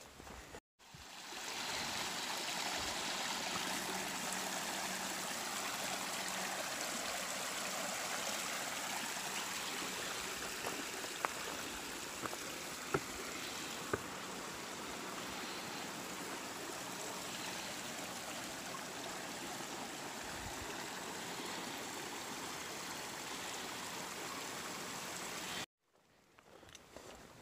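A creek rushing steadily beneath a wooden plank footbridge, with a few faint knocks of footsteps on the planks. The water sound cuts in about a second in and cuts off abruptly near the end.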